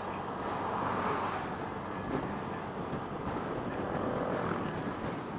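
Ride noise from a moving motorcycle: a steady rush of wind and road noise with the engine running underneath, swelling about a second in as an oncoming dump truck passes.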